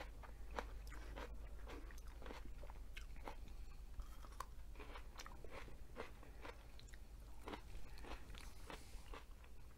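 A person chewing and crunching food close to the microphone: many small irregular crunches and wet mouth clicks.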